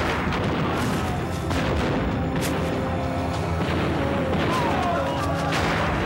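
Battle sound effects: several explosions and cannon shots, spaced a second or more apart, over dramatic music.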